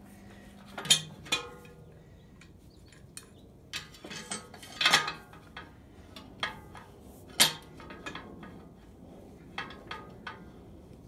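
Large adjustable wrench clanking and scraping against the fan clutch nut and pulley of a diesel engine as it is worked into place for fit: about eight sharp, irregular metal knocks, the loudest about five and seven and a half seconds in.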